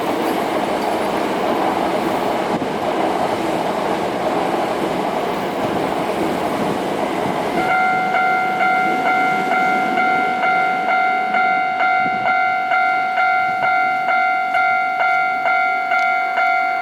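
A train running by with a steady rumble, then about eight seconds in a railway level-crossing alarm starts up, ringing about twice a second. The alarm starts late on purpose: it is held back until the Senri Line route is set, to shorten the time the crossing is closed.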